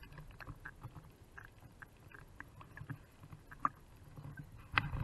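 Small choppy waves slapping and splashing against a waterproof action camera held at the water surface, with scattered light clicks and a low rumble of water on the housing. A louder splash comes near the end.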